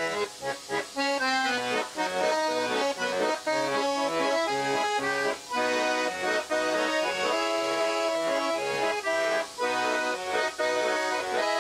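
Background instrumental music: a quick tune of short notes and chords, with brief breaks between phrases.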